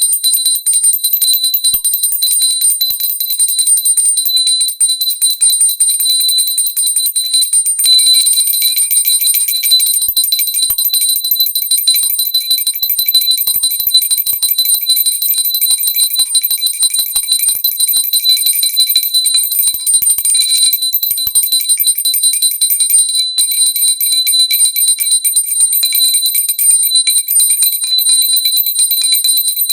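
Pooja bell rung without a break, its clapper striking rapidly so the high, steady ringing tones never die away. A lower ringing tone joins about eight seconds in.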